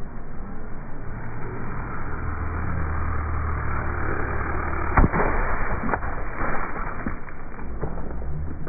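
Ford Raptor pickup's tire rolling over a plastic water bottle on wet pavement, with the truck's engine humming low. A sharp pop about five seconds in, then a few smaller cracks of plastic.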